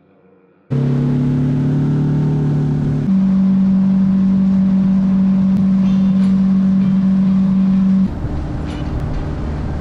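Boat's outboard motor running steadily at cruising speed, loud, with a low drone. Its pitch jumps abruptly twice, about three seconds in and again about eight seconds in.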